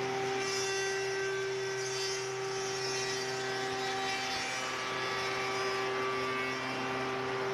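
Unique Machine & Tool door-making machine running, a steady motor hum with one strong constant tone over an even hiss.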